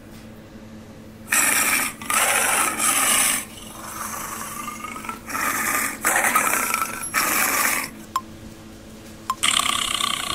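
Tiger growls from a sound-effect video playing on a phone: a series of loud, rasping growls, each about a second long, with quieter gaps between them. A few sharp clicks come near the end.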